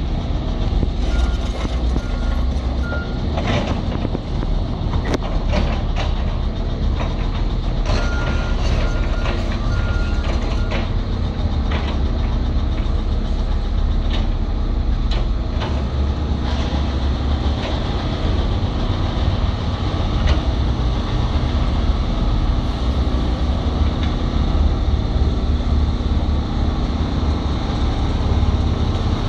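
Caterpillar 320 crawler excavator's diesel engine running steadily under work, with scattered sharp knocks. A backup alarm beeps in two runs of about four beeps each, about a second in and again about eight seconds in.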